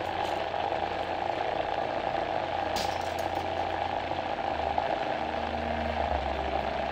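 Countertop blender motor running steadily under load, churning frozen banana into thick, smooth banana nice cream.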